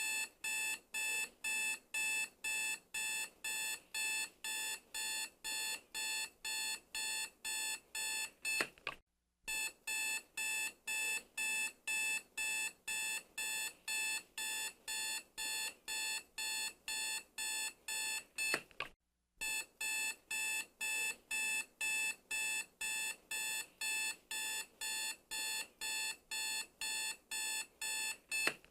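Digital alarm clock beeping: a rapid, even train of shrill electronic beeps, about three a second, broken by a short pause roughly every ten seconds.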